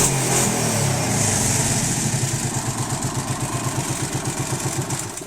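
Arctic Cat 650 V2 ATV's V-twin engine running with a loud engine noise whose cause the owner does not know. About two seconds in it settles into an even pulsing idle of roughly eight to nine beats a second, then stops abruptly at the end.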